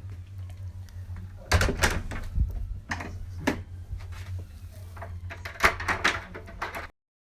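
A front door being worked: a run of sharp knocks and clunks in bunches over a low steady hum, and the sound cuts off abruptly about a second before the end.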